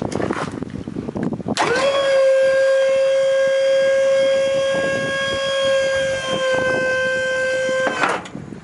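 Electric hydraulic pump motor on a tilt-bed trailer running to drive the bed's hydraulic cylinder, with a steady whine. The pitch climbs quickly as the motor spins up about a second and a half in, holds steady for about six seconds, then cuts off abruptly. Some handling noise comes before it starts.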